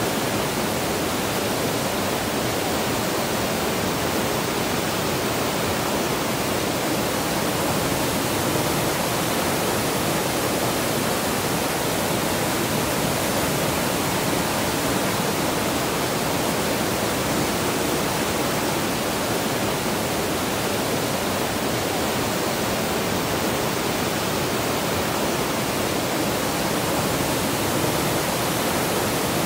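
Whitewater rapids rushing steadily, a dense even roar of water over rocks with no change in level.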